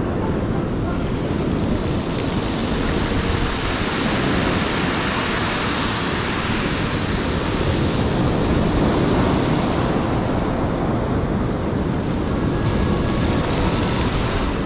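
Ocean surf washing up a beach: a steady rush whose hiss swells and eases as waves break, about three times, with wind on the microphone.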